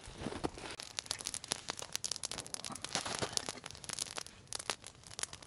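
Small wood campfire crackling, with irregular sharp snaps and pops.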